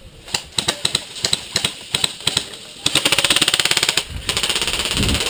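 Airsoft guns firing: a few scattered single shots, then two rapid full-auto bursts of sharp, even clicks, with a low thud near the end.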